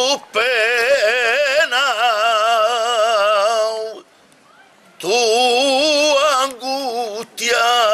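A male flamenco singer sings a saeta unaccompanied: long held notes that waver and turn up and down the scale. Two long phrases are broken by a pause of about a second in the middle, and a short breath near the end leads into the next phrase.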